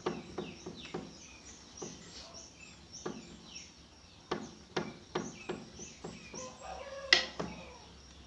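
Birds chirping over and over in short falling notes, with a chicken clucking once about two-thirds of the way in. Through it come about a dozen irregular sharp knocks of kitchen work.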